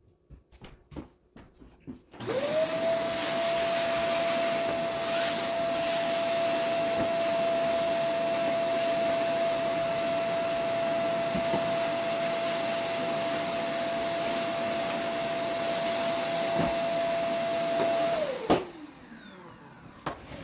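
Vacuum cleaner switched on about two seconds in, its motor whine rising quickly to a steady pitch as the hose nozzle sucks up sanding dust around the wooden table. Near the end it is switched off and the whine falls away as the motor spins down.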